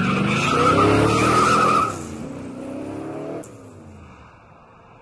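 Sound effect of a sports car engine revving up in two rising sweeps, with a tyre squeal over the first, then dying away.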